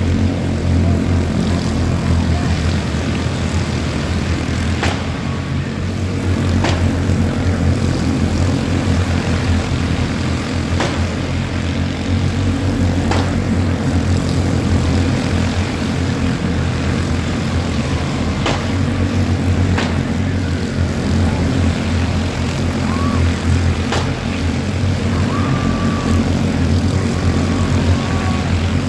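A pack of quarter midget race cars with small Honda single-cylinder engines running together at racing speed around a short oval, a steady mixed engine drone. Faint ticks come now and then over it.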